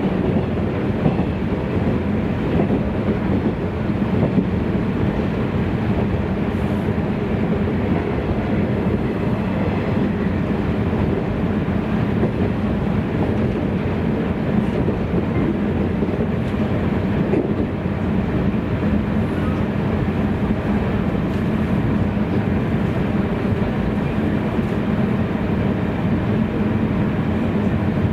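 Cabin running noise of a JNR 113 series electric multiple unit under way: a steady rumble of wheels on rail with a low hum.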